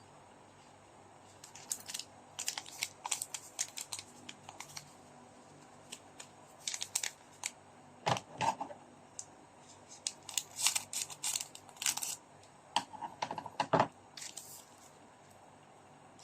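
Trading cards and their packaging being handled: a run of quick sharp clicks and crackles, with two duller knocks about eight and fourteen seconds in.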